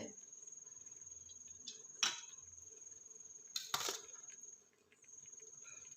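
Two brief knocks of a kitchen utensil against a cooking pot while rice is layered into it, about two seconds in and again just before four seconds, over a faint steady high-pitched whine.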